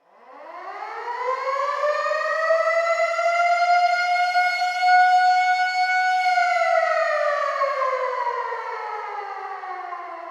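Civil defense air raid siren winding up from a low pitch into a high, steady wail, holding it for a few seconds, then winding down slowly in a long falling glide. It starts from silence.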